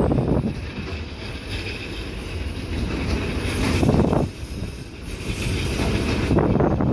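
Wind buffeting the microphone in gusts, with a low rumble. It surges at the start, again about four seconds in, and once more near the end.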